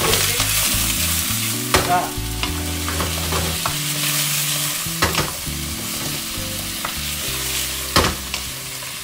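Vegetables sizzling in a hot wok as a wooden spoon stirs and tosses them. The spoon knocks against the pan a few times, sharply near 2, 5 and 8 seconds in.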